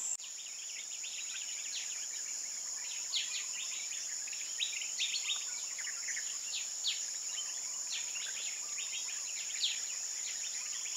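Tropical forest ambience: a steady high-pitched insect drone with many short bird chirps scattered over it.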